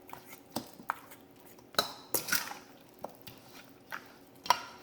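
Dishes and utensils being handled in a kitchen: irregular clinks and light knocks, about nine in all, some ringing briefly.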